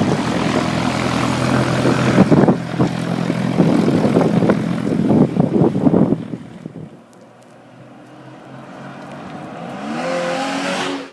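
A vehicle running, loud and rough for about six seconds, then much quieter, with a tone rising in pitch near the end before it cuts off abruptly.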